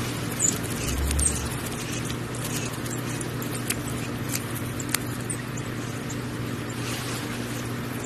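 Faint high squeaks, mostly in the first second or so, and a few sharp little clicks as a parent bird works at its nest, over a steady low hum.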